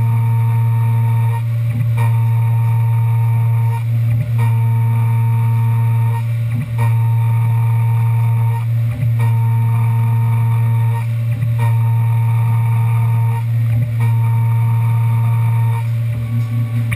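Tormach 1100M CNC mill cutting a part: a steady loud spindle hum, with a higher tone that comes and goes in a regular cycle about every two and a half seconds as the machine repeats its moves.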